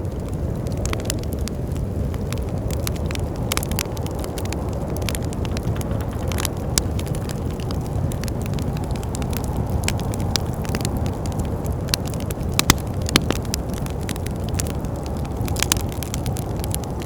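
Wood fire crackling in a fireplace, irregular sharp pops and snaps over a steady low rush of wind.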